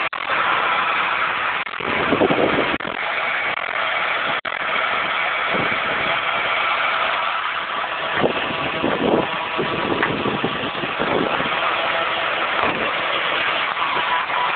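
Toyota Ipsum's 2AZ-FE four-cylinder engine running, with a faint steady whistle over it that the owner cannot place between the automatic transmission and the engine.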